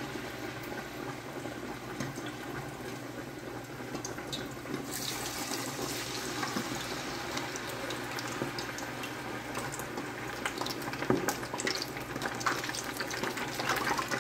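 Battered chicken pieces frying in a pot of hot grease: a steady sizzling and bubbling. It grows louder about five seconds in and again near the end as more pieces are lowered into the oil.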